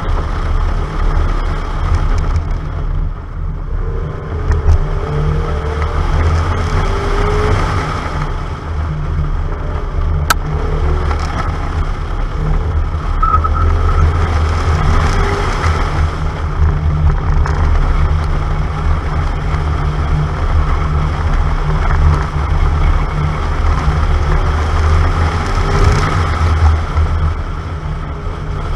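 Car driven briskly around a track, heard from a camera mounted outside on the door: continuous engine and road noise under a heavy low rumble, with a few short squeals.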